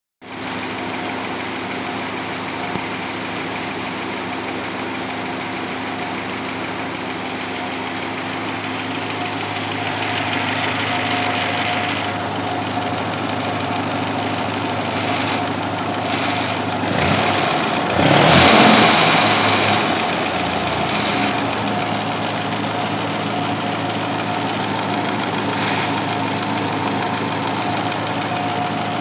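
1948 Ford 8N tractor's four-cylinder flathead engine running steadily on its freshly rebuilt carburetor. It speeds up briefly and settles back down about two-thirds of the way through.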